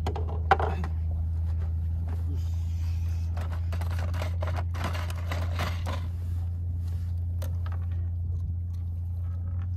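Steady low drone of a boat engine, with a sharp click about half a second in and a run of scraping and rustling handling noises in the middle seconds.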